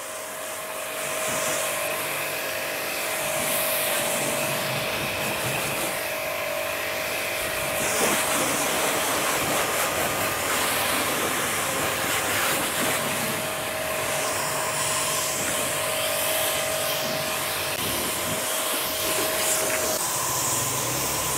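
A Ballorex CW130 2300-watt electric pressure washer running under load, its motor giving a steady whine while its high-pressure jet of water hisses and spatters against the car's glass and body panels.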